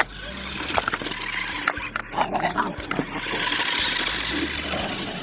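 Growling, animal-like sounds, then a steady hiss about three seconds in that lasts around two seconds.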